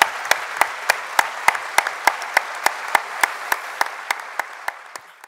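Audience applauding in a large hall, with sharp claps standing out in a steady rhythm of about three to four a second. It eases slightly toward the end, then cuts off suddenly.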